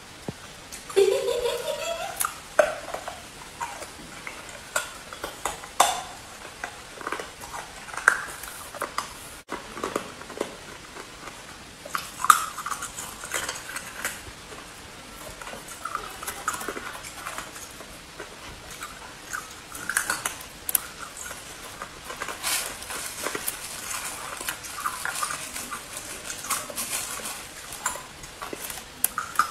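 Hard ice being bitten and chewed: sharp, irregular cracks and crunches, with chunks of ice clinking and a plastic bag crinkling.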